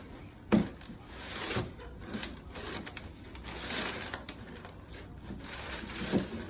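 Shoe box and packaging being handled: a sharp knock about half a second in, then rustling and scraping with small clicks, and another knock near the end.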